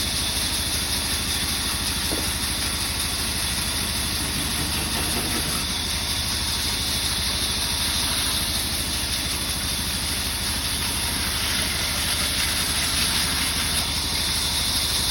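Sawmill saw machinery running steadily, with a low, even, engine-like throb under a constant high hiss.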